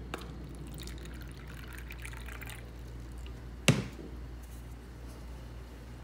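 Water poured from a glass carafe into a paper cup, a soft trickle filling the cup. A little under four seconds in comes a single sharp knock as the carafe is set back down on the tray.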